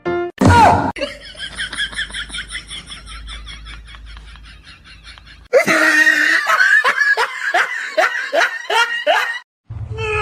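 A person laughing in rhythmic bursts: a run of laughter that fades away, then a louder fit of laughter starting about five and a half seconds in.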